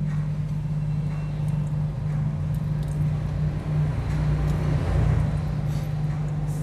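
A steady low hum throughout, with a few faint taps of a cleaver slicing boiled pork on a cutting board.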